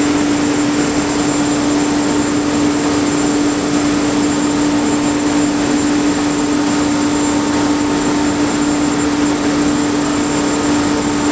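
Tyrolit Hydrostress SK-SD diamond wire saw running steadily as it cuts through a reinforced-concrete silo wall: a constant-pitched drone over an even rushing noise, with no let-up.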